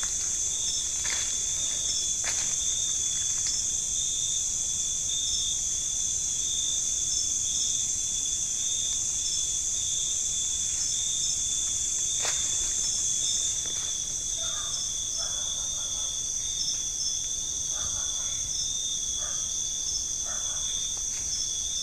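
Steady chorus of night insects, a continuous high-pitched trill with a softer pulsing chirp under it. A few short clicks and faint rustles sound over it, mostly in the second half.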